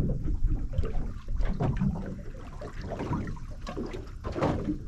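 Water lapping and slapping against the hull of a small anchored boat in irregular splashes, over a low rumble.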